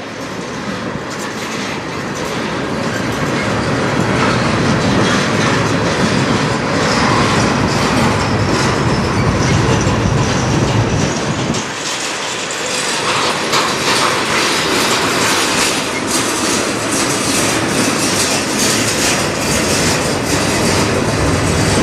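Freight cars of a slow-moving CN manifest train rolling past close by: a steady rumble of wheels on rail with a clickety-clack over the rail joints.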